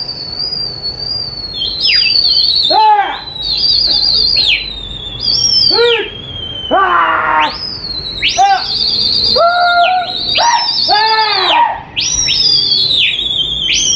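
Shrill whistling: a high held whistle with a wavering pitch, overlaid by repeated swooping whistles that rise and fall.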